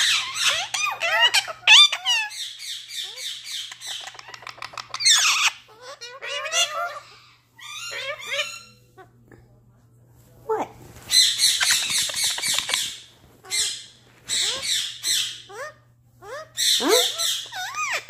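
Indian ringneck parakeets squawking and chattering in harsh, rapid bursts, with a quieter stretch of a few seconds around the middle.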